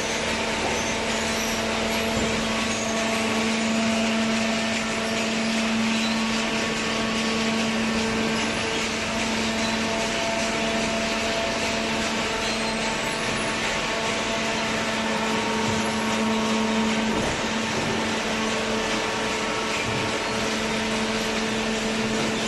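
Hydraulic baler's motor and pump running, a steady hum with a few held tones over even machine noise.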